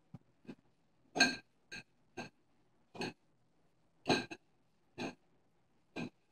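Upturned glass tumbler clinking and knocking on a hard floor as a cat bats and pushes it with its paw: about ten irregular taps, the louder ones ringing briefly, the loudest just over a second in.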